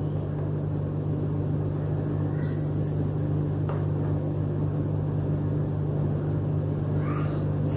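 Steady low electrical or appliance hum filling the room, with two faint clicks about a second apart near the middle.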